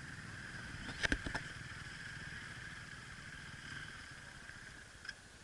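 A pack of dirt bikes running together at a mass enduro start, a steady buzzing drone that fades toward the end. A brief clatter of sharp knocks about a second in.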